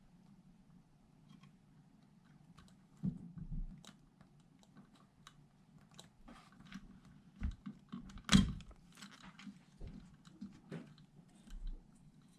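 Scattered small clicks, taps and rustles of hands handling wires and tools at a workbench, with a sharper knock about eight seconds in.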